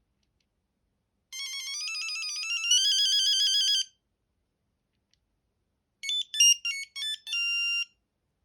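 Sony Ericsson T68i mobile phone playing two of its built-in ringtones. First comes a fast warbling beep that steps up in pitch for about two and a half seconds. After a pause comes a short melody of quick beeping notes ending on a held note.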